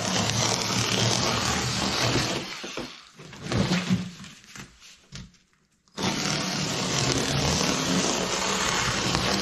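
Ryobi USB Lithium power cutter's motor running as its rotary blade cuts through double-layer cardboard, in two stretches. It trails off about two and a half seconds in, with a short clatter of the cardboard being shifted, and starts again abruptly about six seconds in.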